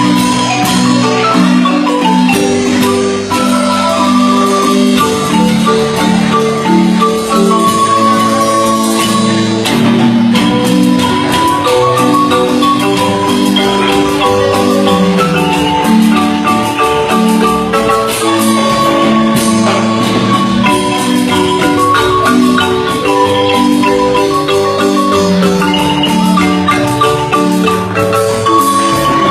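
Guatemalan marimba playing a tune, a melody over a lower bass part.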